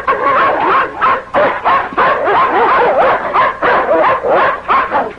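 German Shepherd snarling and barking in quick, repeated short calls as it attacks a man.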